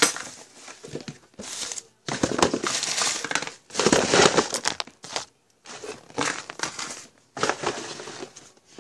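Handling noise: irregular bursts of crinkling and rustling with short pauses between them.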